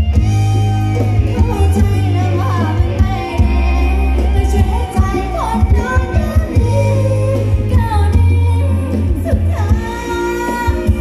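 Thai ramwong dance music from a live band over a loud PA: a singer's gliding vocal lines over a heavy bass beat and percussion.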